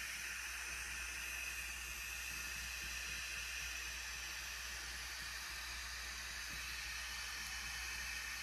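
Steady hiss with a low hum underneath, unchanging throughout: background room noise.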